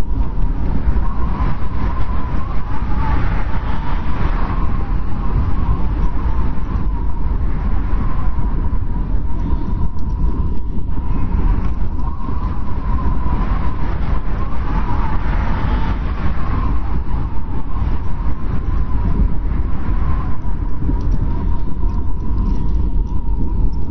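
Blizzard wind blowing hard and steadily, with a deep rumble beneath a high, wavering whistle that swells and fades every few seconds.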